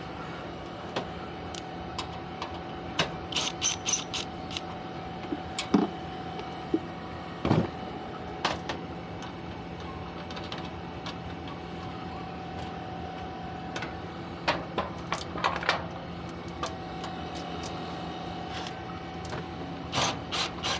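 Scattered metallic clicks, taps and clinks of hand tools and screws being handled, over a steady machine hum.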